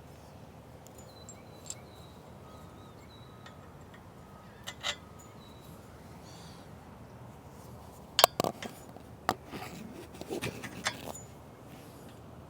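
Sharp metal clinks and knocks of the steel tower hinge hardware being handled and fitted: a couple of isolated clicks, then a quick cluster of louder clanks over about three seconds in the second half.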